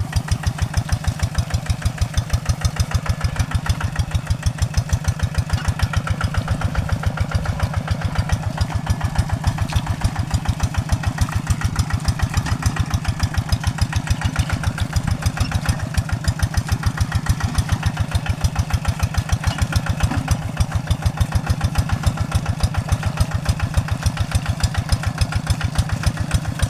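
Paddy-field hand tractor's single-cylinder diesel engine running steadily at a slow, even chug of about five beats a second.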